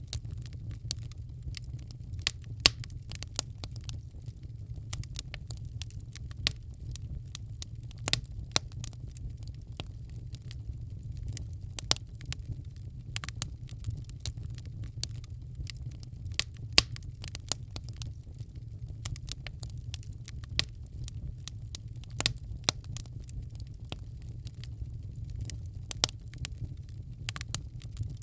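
Wood fire in a fireplace crackling: irregular sharp pops and snaps, several a second, over a steady low rumble of the burning fire.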